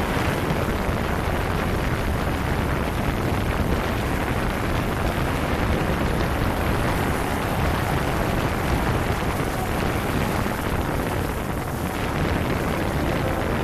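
Steady rushing noise of a quadcopter in flight: rotor downwash and wind buffeting the microphone of the 360° camera hung beneath it, heaviest in the low end with no distinct motor whine standing out.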